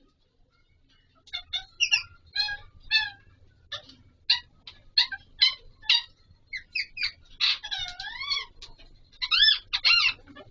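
Alexandrine parakeet calling: after about a second of quiet, a quick series of short, harsh, pitched squawks and chirps, with one longer wavering call about three-quarters of the way through and two loud calls near the end.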